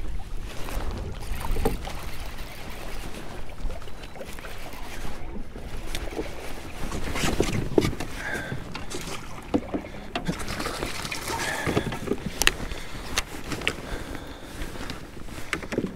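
Handling noise aboard a plastic fishing kayak: scattered knocks, clicks and rustles of gear, clothing and a landing net against the hull and deck, over a low rumble of wind on the microphone in the first couple of seconds.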